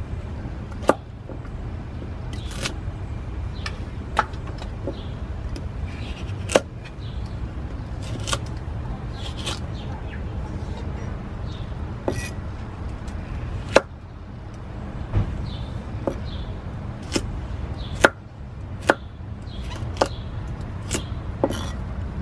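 Knife chopping a carrot on a round wooden chopping board: single sharp knocks of the blade on the wood, spaced irregularly a second or two apart, over a steady low background rumble.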